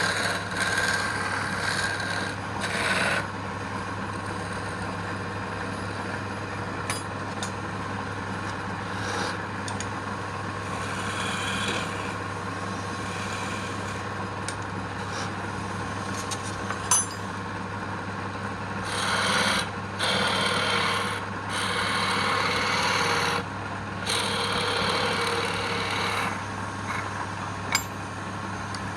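Wood lathe running with a steady hum while a tool works the spinning wood in uneven scraping passes. Two sharp clicks, one midway and one near the end.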